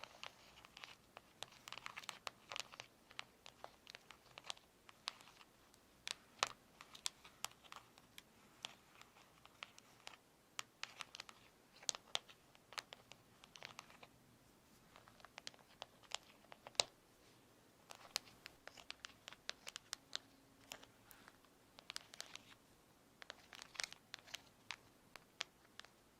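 Fingernails tapping: quick, irregular clicks, several a second, coming in clusters.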